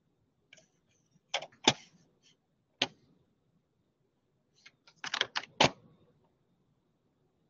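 Scattered sharp clicks and taps at a computer desk: a few single ones through the first three seconds, then a quick run of about five near the end, over a faint low room hum.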